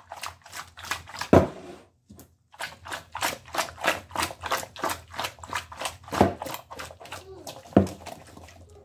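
A cooking pot full of raw chicken, potato and carrot pieces shaken back and forth to mix: quick rhythmic knocking and rattling, several knocks a second, with a short pause about two seconds in and three heavier thumps.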